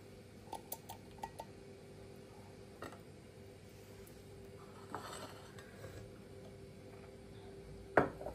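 Dishes and utensils being handled: a few light clicks early, a knock, a short clatter, then one louder ringing clink near the end, over a faint steady hum.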